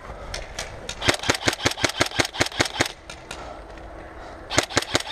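Airsoft gun firing rapid shots in two bursts of about six or seven shots a second, with a pause between them.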